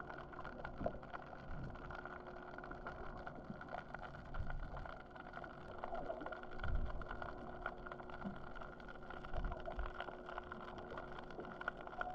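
Muffled underwater sound heard through a submerged GoPro housing: a steady machine hum with scattered low thuds, the loudest about two-thirds of the way through.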